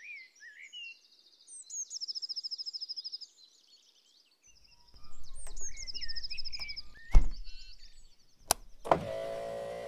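Small songbird chirping and giving fast, high trills, then two sharp knocks near the end; a low steady hum starts just before the end.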